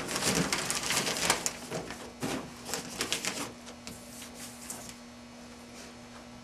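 Masking paper and application tape crinkling and rustling as they are pressed and smoothed by hand over a curved surface, in quick irregular crackles that die away after about three and a half seconds. A steady low hum remains after that.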